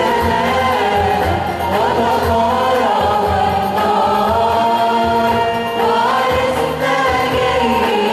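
A choir singing an Arabic Christian hymn, voices holding long notes that slide between pitches.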